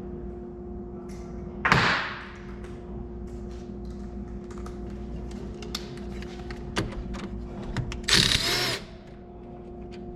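A power tool runs in two short bursts, about two seconds in and again near the end, with scattered small metallic clicks between them, as a bolt is taken off a battery terminal. A steady low hum runs underneath.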